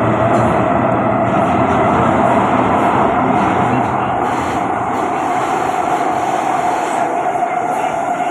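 Kawasaki-Sifang C151B metro train running, heard from inside the carriage: a steady rumble of wheels on rail with a constant motor hum. The low rumble eases off about five seconds in.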